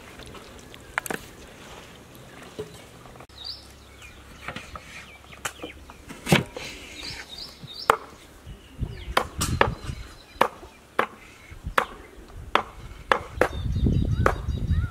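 Knife cutting tomatoes against a wooden chopping board: a string of sharp chops, coming more often in the second half.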